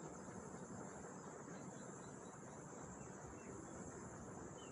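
Faint steady background hiss with a high, even drone, and a few faint short chirps near the end.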